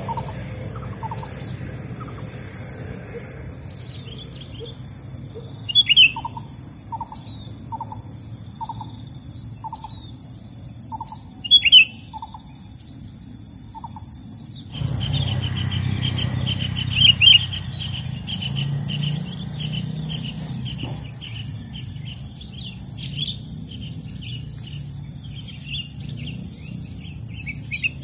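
Sooty-headed bulbuls calling, a loud sharp call every five or six seconds, used as a lure for trapping wild bulbuls. Small birds chirp around them over a steady high insect drone, and a low rumble comes in about halfway through.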